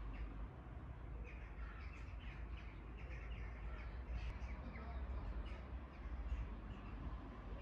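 A flock of crows cawing, many short calls repeating and overlapping, over a steady low rumble.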